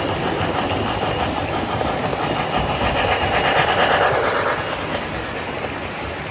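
O gauge model trains running on the layout's track: a steady rolling rumble with a fine clatter of wheels over the rails, swelling as a train passes close about three to four seconds in.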